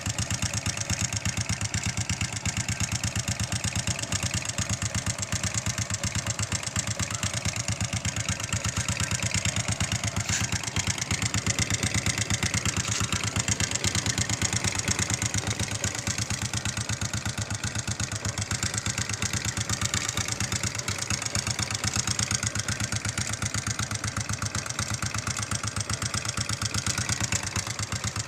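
Honda XRM 125's single-cylinder four-stroke engine idling steadily, with a regular knocking in time with its firing.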